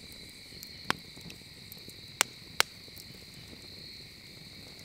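Campfire logs crackling, with three sharp pops: one about a second in and two close together a little past two seconds. Under them runs the steady high chirring of night insects.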